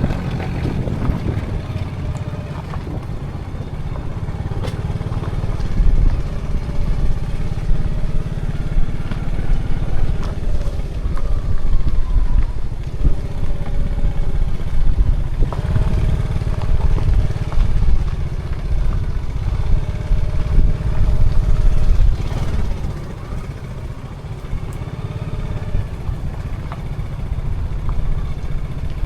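A motor vehicle driving along a road: a steady low rumble of engine and road noise, with engine tones that rise and fall now and then.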